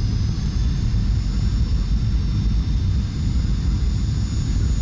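Airliner cabin noise on final approach to landing: a steady deep rumble with a few high, even whining tones from the engines over it.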